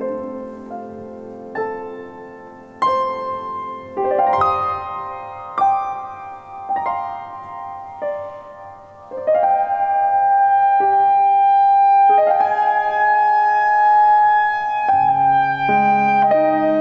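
Clarinet and grand piano playing a slow classical duet. The piano plays separate chords about once a second. From about nine seconds in, long held notes carry the melody over it, and lower notes come in near the end.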